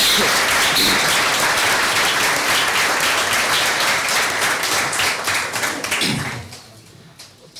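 Audience applauding, a dense clatter of many hands clapping that dies away about six seconds in.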